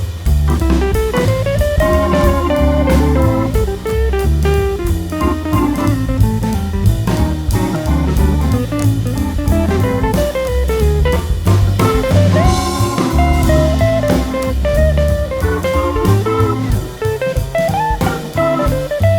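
Background music: a guitar-led blues-jazz tune with a drum kit keeping a steady beat.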